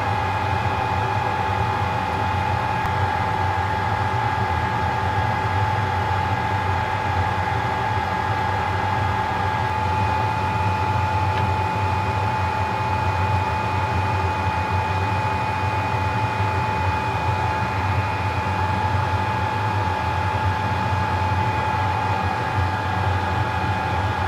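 Steady whir of a motor-driven fan with a low hum and a constant whine; a second, higher whine joins about ten seconds in.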